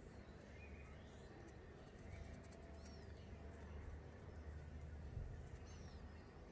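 Quiet outdoor background with a steady low rumble, a few short, faint bird chirps about three and six seconds in, and a run of light ticking clicks around two seconds in.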